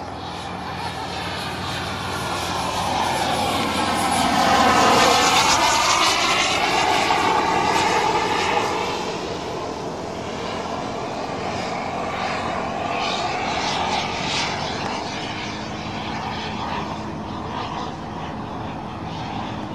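Black Mamba microturbine of a Feibao Mirage F1 model jet, flying past with a rushing jet roar. It swells to its loudest about five seconds in while the pitch sweeps downward as it passes, then fades. It rises again more softly around fourteen seconds in.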